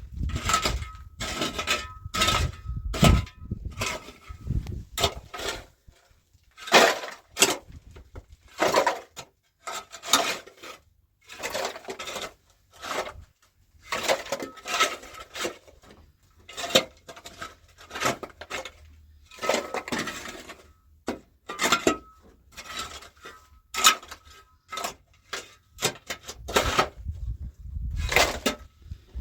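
Hard objects clinking and clattering as they are handled, in irregular sharp knocks about one or two a second, with a faint steady high tone coming and going.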